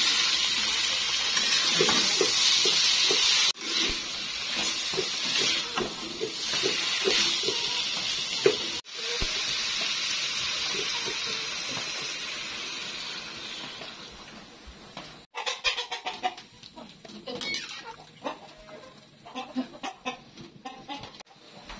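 Sliced bamboo shoots and spice paste sizzling in a hot wok, with a metal spatula scraping and knocking as they are stirred. About two-thirds through the sizzle fades away, leaving quieter irregular clicks and stirring.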